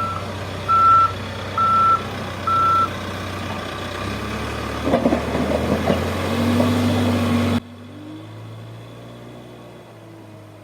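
Heavy diesel machine's reversing alarm beeping about once a second over the steady hum of its engine. The beeping stops about three seconds in. A clattering follows and the engine pitches up, then the sound cuts suddenly to a quieter running engine.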